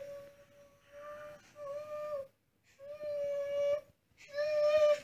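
A toddler's high-pitched, wordless voice in four drawn-out notes, each held at an almost level pitch, with short breaks between them.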